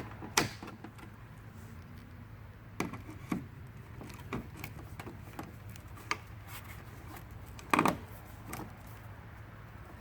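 Pop rivets being set with a hand rivet tool: scattered clicks and knocks, with a few sharper snaps about half a second in, around three seconds in and near eight seconds.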